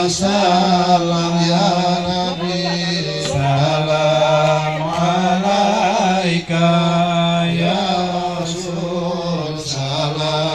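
Islamic devotional chant (sholawat in praise of the Prophet Muhammad) sung in long, drawn-out melodic phrases that waver slowly in pitch, over a steady low held note.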